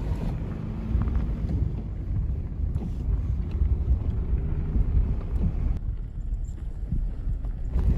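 Storm wind buffeting the microphone: a loud, gusty low rumble that rises and falls.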